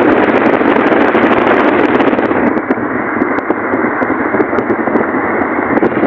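Steady rushing road and wind noise of a moving car.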